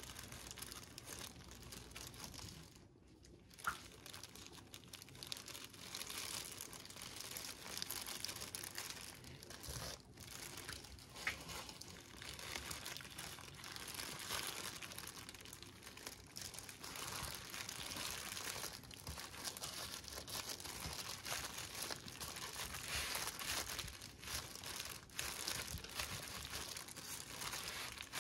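Disposable plastic gloves crinkling and rustling steadily as hands press and roll a kimbap, with a few light taps.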